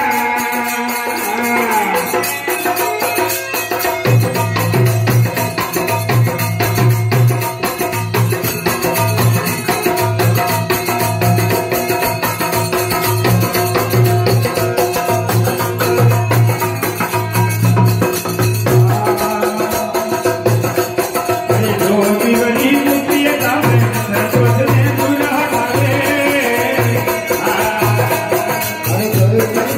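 Instrumental interlude of a Rajasthani folk bhajan: a harmonium plays the melody over a steady low drum beat that comes in about four seconds in, with the constant jingling of brass hand cymbals (manjira) and other hand percussion.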